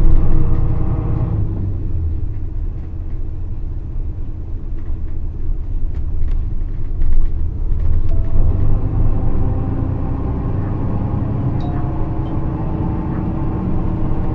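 Nissan Diesel FE6E diesel engine of a KC-RM211GSN midibus heard from inside the bus, over a steady low rumble. The engine note drops away about a second and a half in, stays low for several seconds, then comes back strongly about eight seconds in. The bus is known for an abnormally loud running sound.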